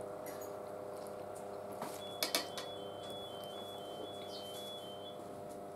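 A fork clinking on a china plate a couple of times during a meal, over a steady low hum in the room. A faint high two-note sound alternates in the background for a few seconds.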